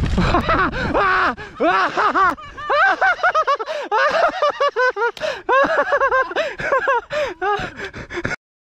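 A person's wordless voice: a long run of short cries that rise and fall, several a second. It cuts off abruptly near the end.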